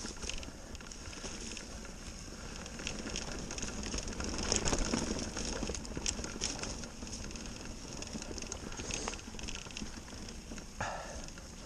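Mountain bike tyres rolling over dry fallen leaves and dirt on a trail, a steady crackling rustle with scattered clicks and knocks from the bike.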